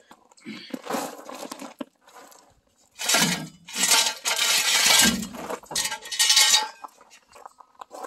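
Steel jack stands being handled on gravel, clanking and clinking metal on metal with scraping, loudest in the middle of the stretch.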